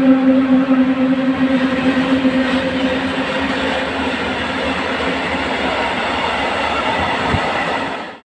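Freight train passing close by, led by two electric locomotives. A steady electric hum fades over the first few seconds and gives way to the rolling rumble of open freight wagons on the rails, with one knock near the end before the sound cuts off suddenly.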